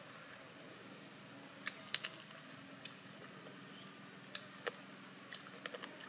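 A person eating chicken, chewing and smacking the lips: scattered short, sharp, wet clicks over a faint steady hum.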